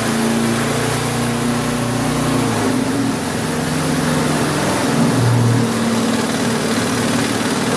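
Briggs & Stratton 3.5 hp single-cylinder four-stroke lawnmower engine running steadily after a cold start, its speed wavering slightly. This is its first run after sitting about 15 years, after the ignition points gap was corrected to cure a no-start.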